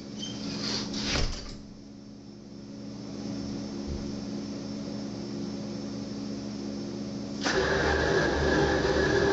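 Steady machine hum with a knock about a second in, then a sudden louder rushing spray starting about seven and a half seconds in: water spraying a silkscreen to wash it out, muffled through a closed glass door.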